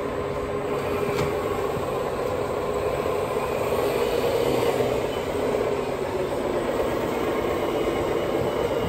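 Steady whine of a radio-controlled model Komatsu WA470 wheel loader's electric motors and hydraulics as it drives and works its bucket, the pitch drifting a little in the middle.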